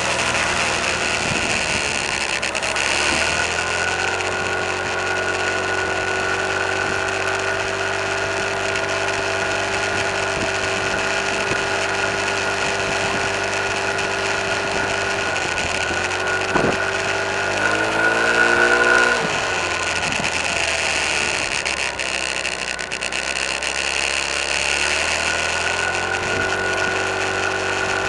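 Vehicle engine running steadily while driving, heard from inside a car's cabin. About seventeen seconds in, its pitch climbs briefly as the engine revs up, then settles back to a steady run.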